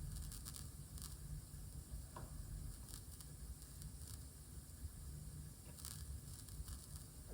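Crackling and popping from a studio monitor fed by the left channel of a defective Tascam LM-8ST mixer: irregular short crackles over a low hum. It is the fault that shows on the mixer's left channel when its volume potentiometers are turned.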